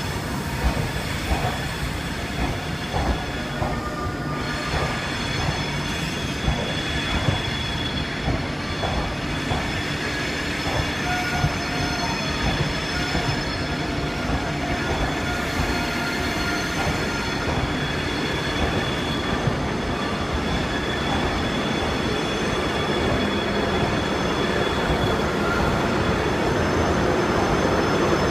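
Train running slowly over the rails with a high, steady wheel squeal and scattered clicks of wheels over rail joints, growing louder toward the end.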